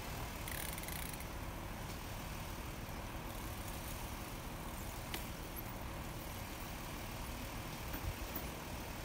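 Steady low rumble of cars idling while they wait at a closed railway crossing, with a brief sharp click about five seconds in.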